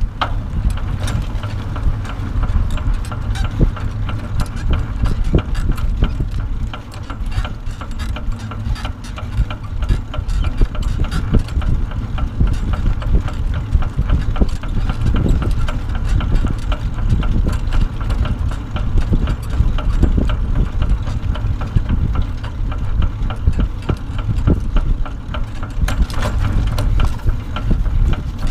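Wind noise on the microphone as a bicycle dog trailer rolls along pavement, with a steady low rush and a busy rattle of small knocks from the trailer over the road surface.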